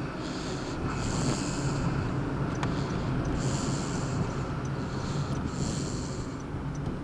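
Snoring: hissing, wheezy breaths repeating about every two seconds, over a steady low hum.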